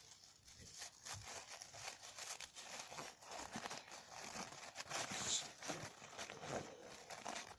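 A crumpled ball of paper being unfolded and smoothed out by hand: quiet, irregular paper crinkling and rustling.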